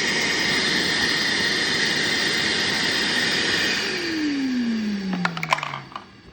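Bauer 3 HP wet/dry vacuum running steadily, then switched off about four seconds in, its motor winding down with a falling whine. A few clicks and knocks follow near the end.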